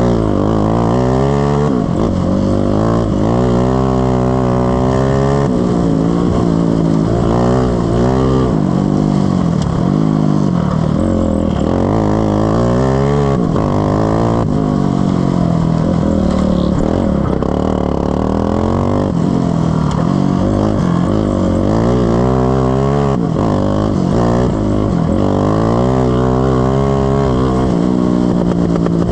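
Several racing ride-on mower engines running hard, their pitch rising and falling over and over as they accelerate and back off, with the notes of different engines crossing one another.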